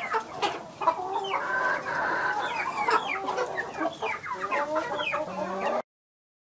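A small flock of Leghorn hens clucking, many short calls overlapping one another; the sound cuts off suddenly near the end.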